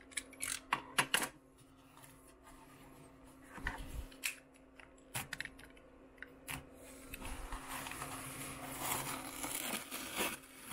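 Small cardboard shipping boxes being handled: a few sharp taps and knocks on the cardboard and a couple of dull thuds, then a few seconds of rustling and tearing near the end as a box is opened.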